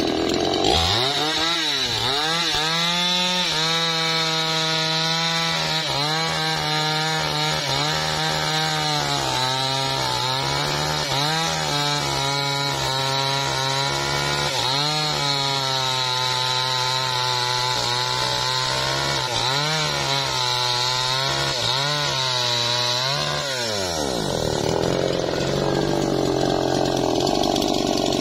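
Two-stroke chainsaw revving up and running at full throttle as it cuts through a teak log, its pitch dipping briefly again and again as the chain loads up in the wood. About 24 seconds in the engine note drops away and a rougher, lower running noise follows.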